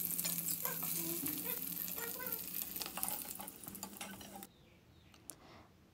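Fish pieces sizzling in hot mustard oil in a metal kadai, with a metal spatula scraping and clicking against the pan as the pieces are lifted out. The frying sound cuts off suddenly about four and a half seconds in.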